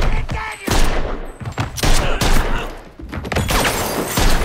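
Gunfight gunshots from pistols: five or six loud shots, unevenly spaced, each a sharp crack.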